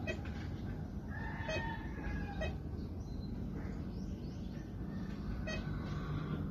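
A rooster crows once, a long call about a second in. Short electronic beeps from the metal detector sound a few times, over a steady low hum.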